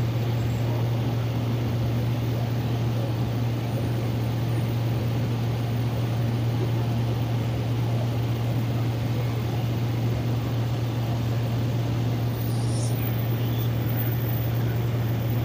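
Small plane's engine and propeller droning steadily, heard from inside the cabin behind the cockpit, with a strong even low hum.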